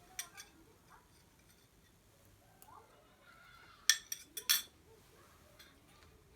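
Sharp clicks of small hard objects being handled: two light clicks at the start, then a quick cluster of five or six louder clicks about four seconds in.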